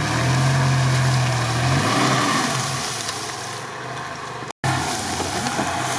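Mitsubishi Pajero 2 engine revving hard under load in deep mud on a tow rope, easing off about two seconds in. The sound cuts out for an instant about four and a half seconds in.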